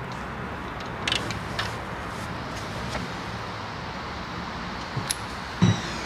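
A few light metallic clicks and knocks of a socket and extension as a spark plug is worked out of the engine, over a steady background hiss; a couple of heavier knocks come near the end.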